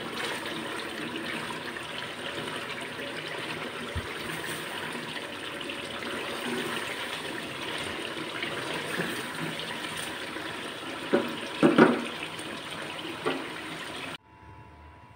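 Chicken curry sizzling and bubbling in a kadhai as the thickened masala is fried down after its water has cooked off, stirred with a silicone spatula. A few louder knocks and scrapes of the spatula against the pan come near the end, then the sound cuts off.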